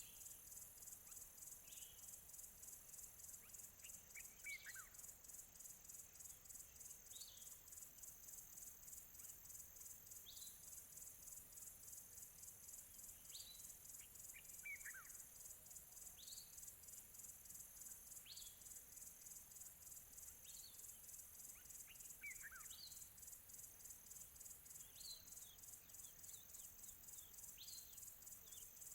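Faint insect chorus, a rapid pulsing high buzz. Over it, birds give short chirps every couple of seconds, and three times a longer falling whistle.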